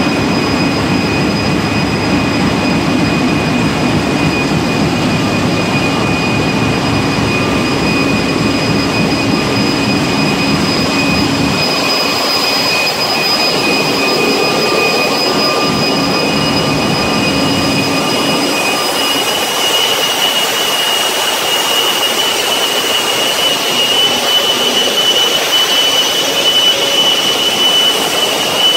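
Loud, continuous engine-room noise from a cruise ship's running diesel generator engines, a dense rumble with steady high-pitched whines over it. The deep rumble thins out about twelve seconds in and again from about eighteen seconds, and a different high whine takes over near twenty seconds.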